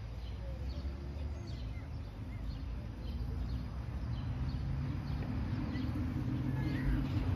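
Outdoor ambience: scattered bird chirps over a low, steady hum that grows louder about halfway through.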